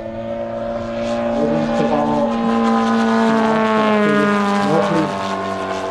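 Engine of a large radio-controlled Pitts aerobatic biplane in flight, running steadily at high throttle with a buzzing drone. It grows louder toward the middle and eases a little near the end as the plane passes, its pitch sinking slightly.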